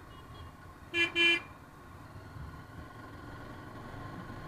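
A vehicle horn sounds two quick beeps, a short one then a slightly longer one, over the steady low rumble of engine and road noise from a motorbike ride.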